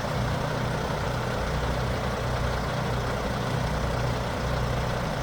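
A heavy engine running steadily with an even low hum, typical of the crane or truck engines on a tree-removal job site.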